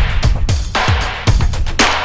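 Background music with a steady beat: drums and guitar.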